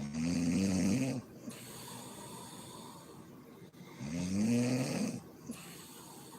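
A woman snoring in her sleep: two snores about four seconds apart, each lasting about a second with a low pitched tone, with quieter breathing between.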